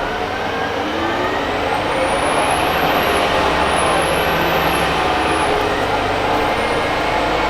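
Orion VII CNG bus with a Detroit Diesel Series 50G engine and Allison B400R transmission pulling away and picking up speed: the drivetrain's whine rises in pitch, drops back about three seconds in, rises again and then falls away, over a steady engine drone that grows a little louder.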